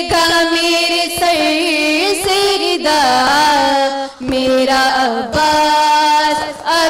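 Three women singing an Urdu noha, a Muharram lament, together into microphones: long held notes with vibrato and slow bends, over a steady beat about once a second.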